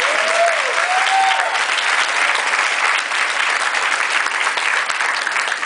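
Audience applauding, a dense steady clatter of many hands, with one voice calling out briefly in the first second or so.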